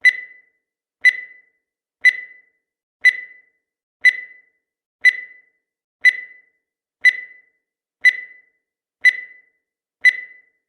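Countdown timer sound effect: a short, high tick once every second, eleven in all, each dying away quickly.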